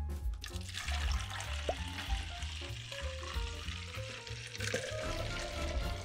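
Water pouring from a plastic bowl into a Barbie Color Reveal doll's plastic tube, a steady splashing hiss that starts about half a second in.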